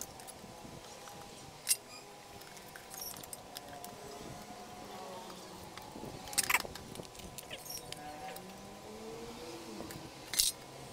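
Sparse metal clicks and clinks from rice cooker parts and tools being handled during disassembly, with the loudest clatter about six and a half seconds in and another near the end.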